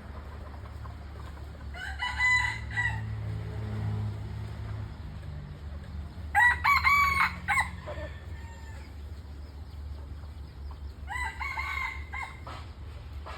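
Junglefowl rooster crowing three times, each crow a short run of notes lasting about a second. The middle crow is the loudest. A steady low hum runs underneath.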